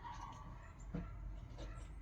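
Faint handling noise of small metal engine parts: a short squeak at the start and one light knock about a second in.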